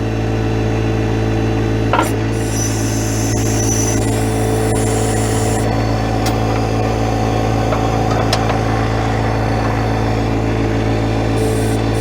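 John Deere 1025R compact tractor's three-cylinder diesel engine running steadily at low speed, with a single sharp click about two seconds in.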